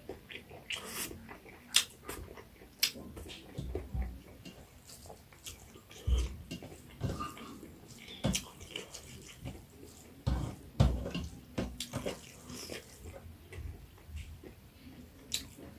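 Close-up eating sounds: a person chewing pork curry with wet lip smacks and sharp mouth clicks at irregular intervals.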